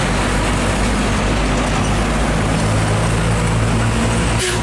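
Heavy diesel trucks driving past at close range: steady road and tyre noise, with a truck engine's low hum growing louder from about halfway through as it draws near. A brief click near the end.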